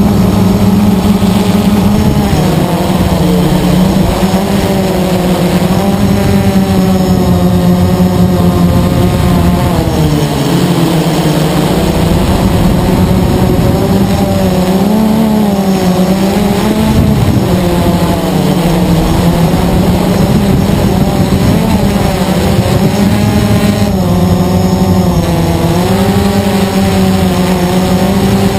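Blade 350 QX quadcopter's four brushless motors and propellers running in flight, a loud steady buzzing whine heard from the camera on the craft. Its pitch wavers up and down several times as the motor speeds change, dipping about a third of the way in and again near the end.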